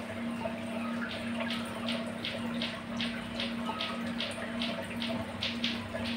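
Aquarium water running with a steady pump hum. From about a second in comes a regular run of short splashy ticks, about three a second.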